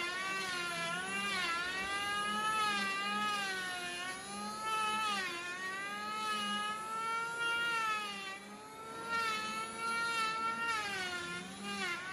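Electric hand planer running and cutting across a rosewood slab. Its whine repeatedly sags and recovers in pitch as the blades bite and ease through each pass.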